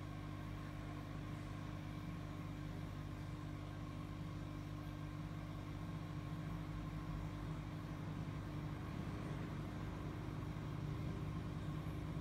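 Steady low mechanical hum, slowly getting a little louder toward the end.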